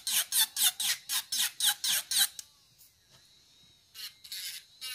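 Ceramic bit of a cordless brushless electric nail drill filing dip powder off a fingernail in quick repeated strokes, about four a second, each a short rasp falling in pitch. The strokes stop a little over two seconds in, and a few shorter, irregular ones follow near the end.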